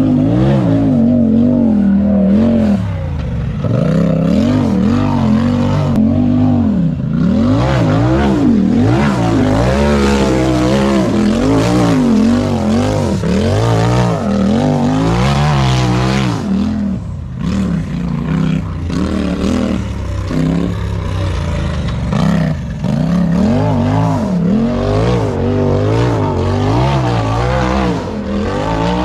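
Side-by-side (UTV) race engine running hard and continuously, its pitch rising and falling every second or so as the throttle is worked on and off.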